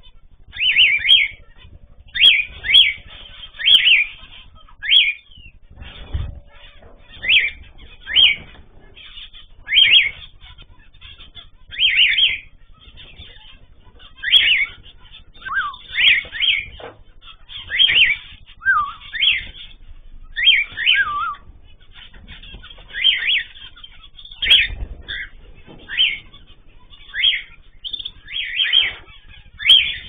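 Aviary birds calling: short, high chirps and whistles about once a second, some sliding downward in pitch. Two low thumps come in, one about six seconds in and one near the end.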